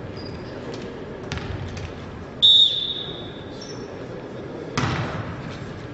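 Volleyball referee's whistle: one blast about a second long, signalling the serve. About two seconds later comes a single sharp smack of the volleyball being struck, echoing in the sports hall.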